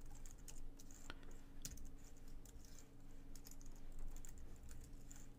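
Computer keyboard typing: faint, irregular key clicks in quick runs as a name and password are entered, over a faint steady low hum.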